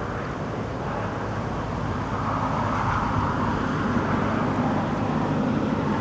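Steady low rumble of outdoor background noise, swelling slightly about two seconds in.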